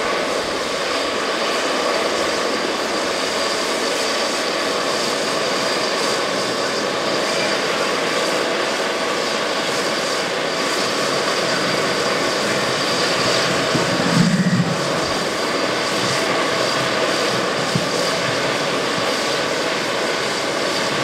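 Eurocopter EC135 air-ambulance helicopter running on the ground: a steady turbine whine with several held tones. A brief low thump about two-thirds of the way through.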